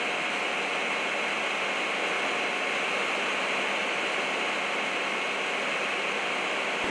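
Steady rushing hiss of firefighting runoff water cascading down a dirt embankment onto the street.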